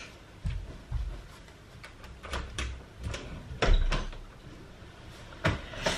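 A room window being unlatched and opened: a series of knocks and thuds, the loudest a little after halfway through.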